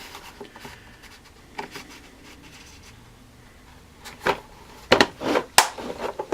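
Hand tools being handled in a toolbox: light scraping and rubbing at first, then a handful of sharp clicks and knocks of tools against each other or the drawer in the last two seconds.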